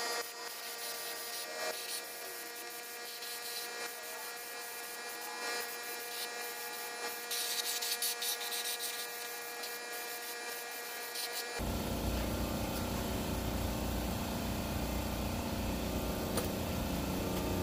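Gravity-feed spray gun hissing in short bursts as it lays on 2K automotive primer, over a steady hum. About two-thirds of the way through, a louder low rumbling machine noise starts suddenly and keeps running.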